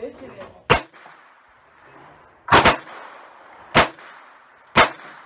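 Bernardelli VP .25 ACP pocket pistol firing a slow string of about five shots, two of them in quick succession about two and a half seconds in. The pistol is being test-fired with a new reproduction firing pin spring, fitted to cure misfires from a kinked spring.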